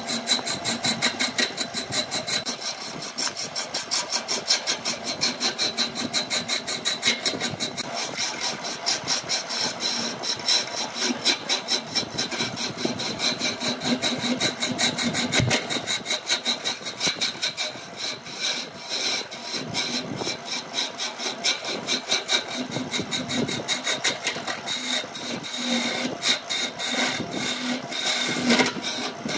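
Turning gouge cutting into a spinning wooden blank on a BURT wood lathe, the shavings coming off in a rapid, rhythmic scraping over the steady run of the lathe's motor.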